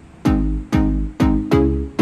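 Background music: plucked string notes struck about twice a second over a deep bass.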